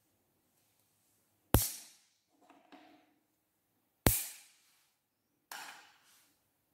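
A small plastic tool tapping down onto glitter-covered slime: two sharp taps about a second and a half and four seconds in, each fading off quickly, and a softer one near the end, with a few faint sticky touches between.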